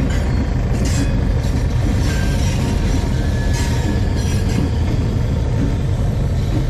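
Diesel freight locomotive running close by, a loud steady low rumble. A few faint, brief high squeals come through about two and three and a half seconds in.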